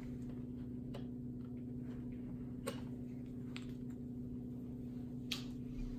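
A few faint clicks and taps as a small grease tube and the plastic hose-reel housing are handled, over a steady low hum.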